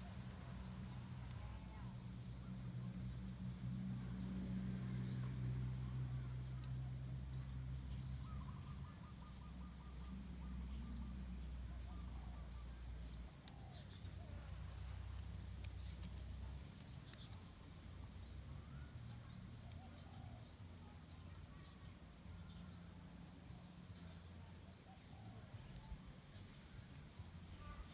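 A bird chirping over and over, short high calls about one and a half times a second, over a faint low hum that fades in steps during the first half.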